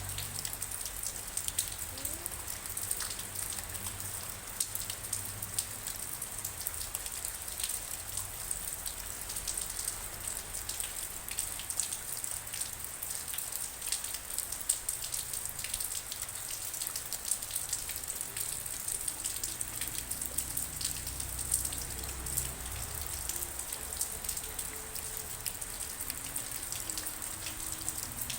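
Steady rain falling, a continuous hiss dotted with many sharp individual drop ticks.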